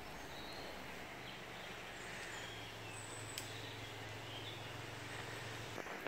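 Faint woodland ambience: a soft steady hiss with a low steady hum, and a few faint bird chirps.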